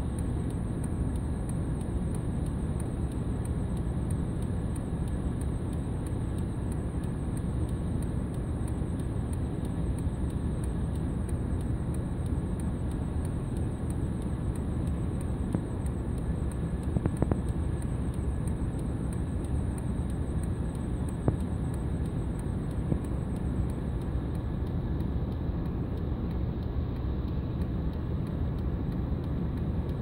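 Steady low rumble of outdoor background noise, with a few faint ticks about halfway through.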